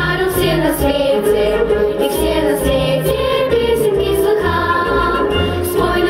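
A group of children and girls singing together into microphones, amplified over instrumental accompaniment with a steady beat.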